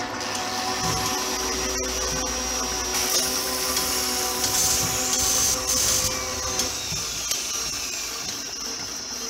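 Sound effect of a workshop machine motor running: a steady whir with a high-pitched whine over it.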